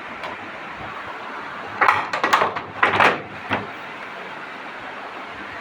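A quick run of sharp knocks and clatters, bunched together about two to three and a half seconds in, over a steady background hiss.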